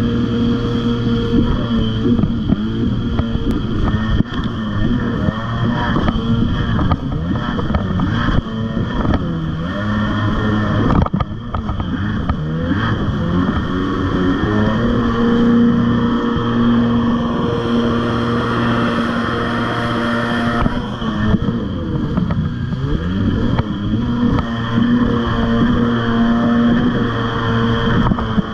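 Arctic Cat Tiger Shark 640 jet ski's two-stroke twin engine running under way, its pitch rising and falling with the throttle and easing off briefly about eleven seconds in, over the rush of water spray.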